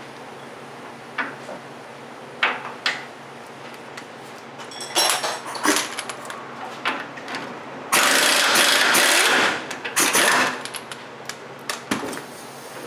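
A few sharp metallic clicks, then a pneumatic impact wrench runs in several short bursts, the longest about a second and a half, backing out the steering rack's mounting bolts.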